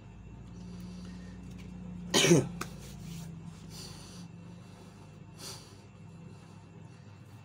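A man coughs once, sharply, about two seconds in. Fainter brief rustles follow, over a steady low hum.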